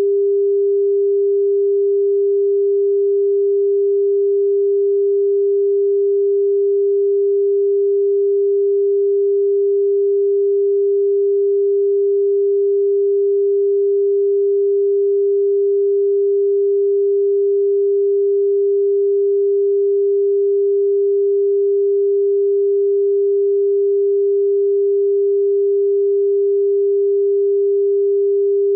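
Broadcast line-up test tone that accompanies SMPTE colour bars: a single pure, steady tone, fairly low in pitch, held unbroken at an even level.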